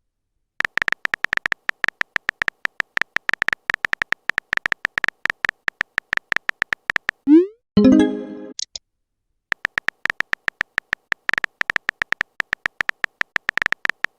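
Rapid clicks of a phone-keyboard typing sound effect, several a second, stopping midway for a short rising pop and chime of a message notification, then the typing clicks start again.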